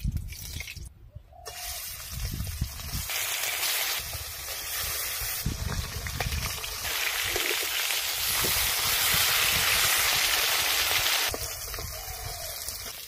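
Pieces of hilsa fish frying in hot mustard oil in a metal wok: a loud, steady sizzle that builds about a second and a half in, is strongest in the middle and eases off near the end.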